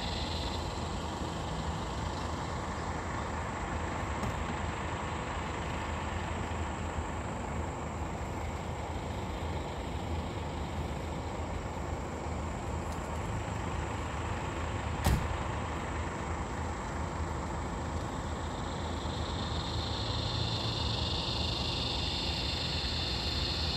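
Steady low rumble of distant engines, with a high hiss at the start and near the end. A single sharp click about fifteen seconds in.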